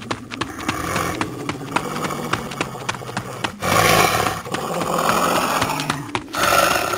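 Animal growling and roaring sound effects for a werewolf, with two louder roars, one about halfway through and one near the end, over a quick patter of clicks.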